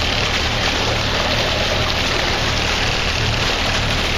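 New MIDIF 27 hp inboard boat engine running in gear, its propeller churning the water: a steady low engine hum under the rushing of the propeller wash.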